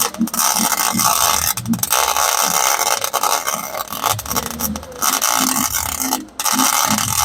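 Wire-feed (MIG) welder arc crackling steadily as a bead is laid on a car exhaust pipe, stopping briefly a few times between stretches of welding.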